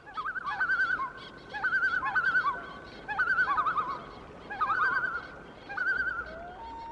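Bird calls: a wavering, warbling tremolo in about five short phrases. Near the end comes a rising glide into a long held note.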